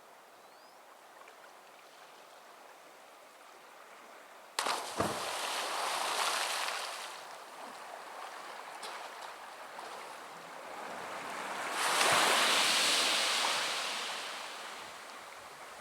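Ocean waves breaking on a beach: a sudden loud crash with a low thump about a third of the way in that washes away over a few seconds, then a second wave building and breaking in a long rush near the end.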